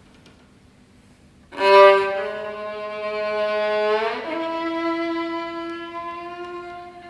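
Solo violin, bowed: after a quiet pause a loud low note comes in with a sharp attack about a second and a half in and is held. Around four seconds in it slides quickly into a higher sustained note that slowly fades.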